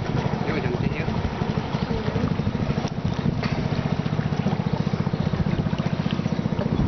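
A small boat engine running at a steady speed, a rapid, even low pulse, with the wash of river water and wind around it.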